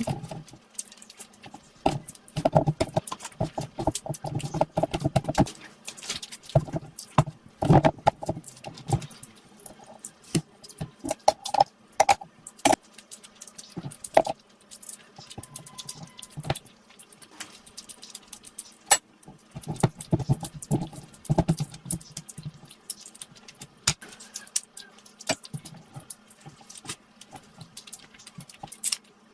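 Close-miked eating: wet chewing and mouth smacking on rice and curry, a dense run of irregular soft clicks and squelches.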